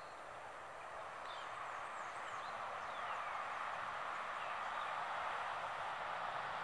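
Steady outdoor background noise with a few faint, short, high descending chirps, most of them between about one and four seconds in.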